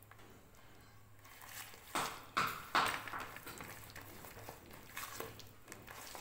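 A hand mixing a soft, sticky paste in a plastic bowl: irregular wet squishing strokes, the loudest three a little after two seconds in.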